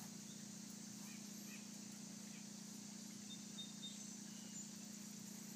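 Quiet backyard ambience: a steady low hum with a few faint, high chirps from birds, a little clustered past the middle.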